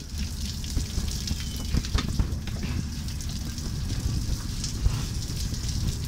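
Seawater streaming and dripping off a rusted car wreck hoisted from the trawl, falling onto the steel deck as many small irregular ticks and splashes over a low steady rumble.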